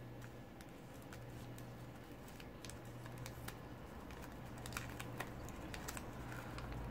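Faint crinkling and scattered soft clicks of stiff colored origami paper being folded and pressed between the fingertips, over a low steady hum.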